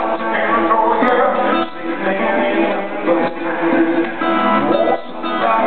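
Live band music with the guitar to the fore, backed by drums, and a singer's voice in the mix.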